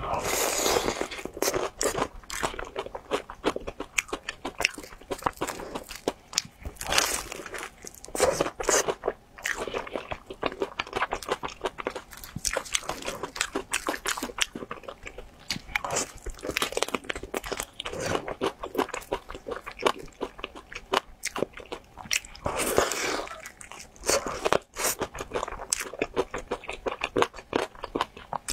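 Close-miked eating of crispy fried chicken drumsticks coated in sauce: bites through the crisp crust and chewing. A steady run of sharp crackles, with louder bites every few seconds.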